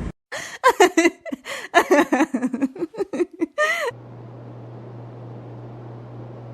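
Someone giggling and laughing in short choppy bursts for about three and a half seconds, then a steady low hum.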